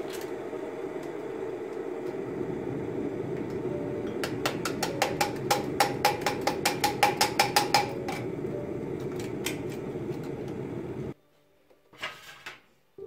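Brass hand coffee mill being cranked, grinding coffee beans with a steady rasp. In the middle comes a run of rapid clicks, about five a second. The grinding stops abruptly near the end, followed by a couple of light knocks.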